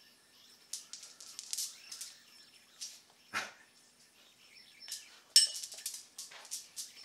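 A bimetal yo-yo and its string being thrown through freehand counterweight tricks: a run of brief, irregular swishes as the string and spinning yo-yo whip through the air, with one longer falling whoosh midway. A single sharp click about five and a half seconds in is the loudest sound.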